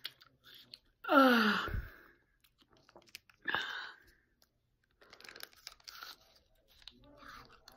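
Close-up mouth sounds of a person eating: a short pitched sound that slides down in pitch about a second in, a shorter pitched squeak a couple of seconds later, then faint chewing and crunching near the end.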